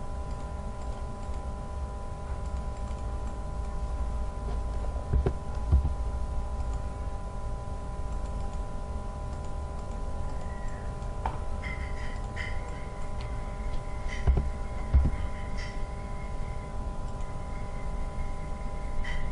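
Steady background hum of several held tones over a low rumble, with a few short, soft knocks about five and a half seconds in and again around fourteen to fifteen seconds. A higher held tone joins a little past halfway.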